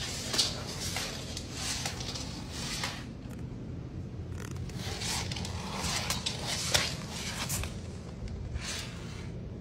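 An iguana's claws scratching and scraping on a hard floor as it walks, in irregular strokes, with one sharp click about two-thirds of the way through.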